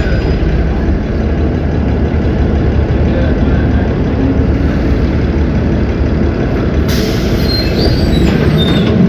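Cummins ISB 6.7 six-cylinder diesel engine of a city bus running steadily. About seven seconds in, a hiss joins it.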